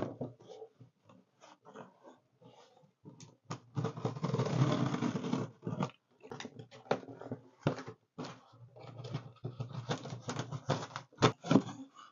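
A cardboard shipping box being handled and opened, with knocks and scrapes of the box against the table. About four seconds in there is a longer stretch of scraping and tearing as the tape is slit with a utility knife. Scattered clicks and rustles follow as the flaps are pulled open.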